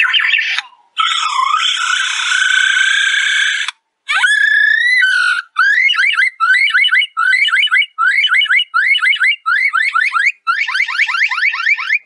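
A male superb lyrebird singing loud mimicry. It opens with harsh, noisy calls for a few seconds and a long rising sweep, then runs of short rising whistles repeated in quick bursts, much like an electronic car alarm.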